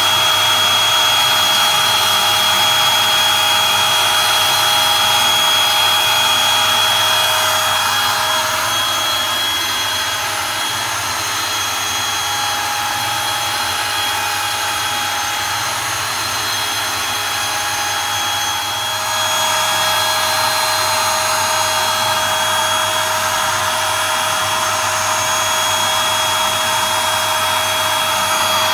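Makita RT0700C trim router on a hobby CNC machine, spinning a 6 mm two-flute end mill and cutting 3 mm deep into plywood. It makes a steady whine over a rushing noise, which drops a little in level and changes pitch for about ten seconds in the middle.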